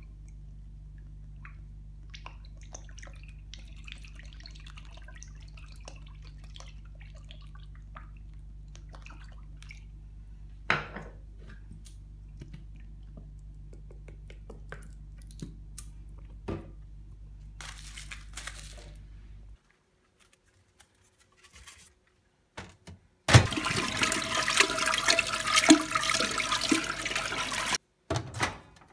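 A steady low hum with small clicks and taps as bottles are squeezed over a paper plate of milk. Then, about two-thirds of the way in, comes a loud rush of running water lasting about four seconds, which cuts off suddenly.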